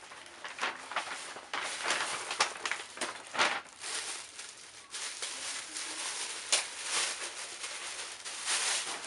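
Clear plastic wrapping and a paper shopping bag rustling and crinkling as a handbag is pulled out and unwrapped by hand, in irregular crackly bursts.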